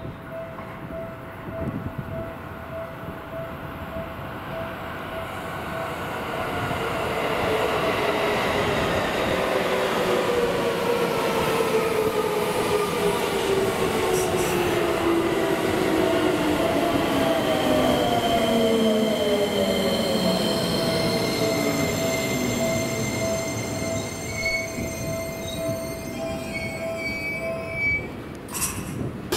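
Seibu 20000 series electric train with Hitachi IGBT-VVVF inverter braking into a station: the inverter and motor whine falls steadily in pitch as the train slows, over wheel and rail noise. As it comes to a stop, higher-pitched tones come in.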